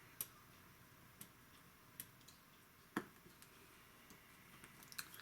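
Faint light clicks, about one a second, over near silence, the loudest about three seconds in, with a few softer ticks near the end.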